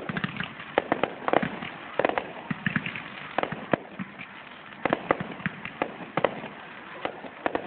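Fireworks display going off: an irregular string of sharp bangs and pops, several a second, with a short lull about four seconds in.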